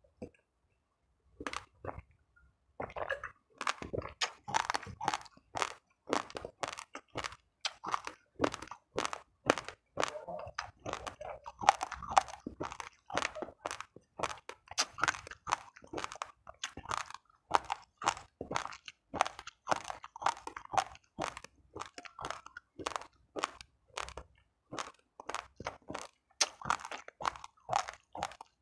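Close-up chewing of uncooked rice grains: a steady run of sharp crunches, about three a second, starting after a short pause at the beginning.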